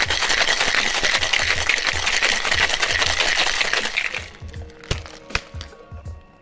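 Ice rattling hard inside a Boston shaker, a steel tin sealed over a mixing glass, shaken fast with a cocktail for about four seconds, then stopping. A couple of sharp knocks follow about a second later.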